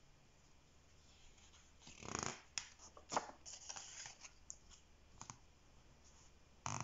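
A picture book's paper page being turned: a soft rustle about two seconds in, then a few light clicks and taps as fingers handle and smooth the book.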